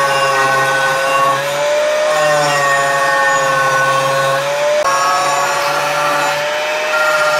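Angle grinder with a thin cut-off disc cutting into a steel knife blank: a steady high motor whine over a grinding hiss, the pitch wavering slightly as the disc bites. There is an abrupt jump in the sound about two-thirds of the way through.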